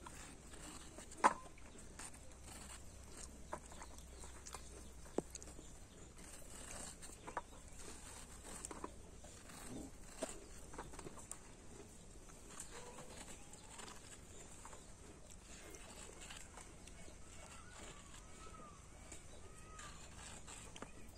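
Small knife cutting strips from a peeled sponge gourd held in the hand, a scattering of soft cuts and sharp clicks, the loudest about a second in. Faint bird chirps come in near the end.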